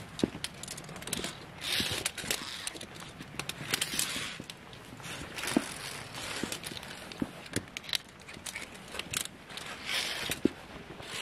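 Climbers moving off along a via ferrata: footsteps and clattering climbing gear, heard as irregular knocks and clicks with brief rustling.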